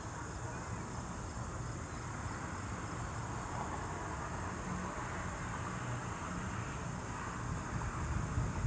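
Steady chirring of insects, with a low, uneven rumble underneath.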